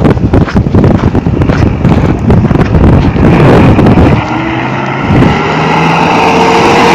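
Wind buffeting the phone microphone for the first four seconds. Then a Mahindra Bolero Camper pickup's engine note comes up, rising slightly in pitch and getting louder toward the end.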